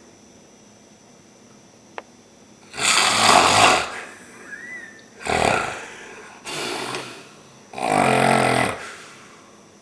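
A man snoring loudly in four long snores, each lasting up to about a second, the first and last the loudest. A single sharp click comes about two seconds in.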